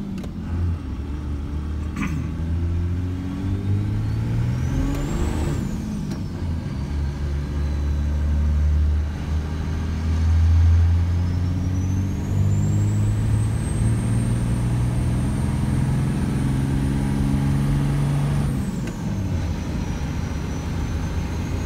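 Second-generation 24-valve Cummins 5.9 L inline-six diesel with compound turbochargers, heard from inside the cab, pulling under load up a steep grade with a steady low drone. A high turbo whistle rises and falls a few seconds in, then rises again, holds for several seconds and drops away.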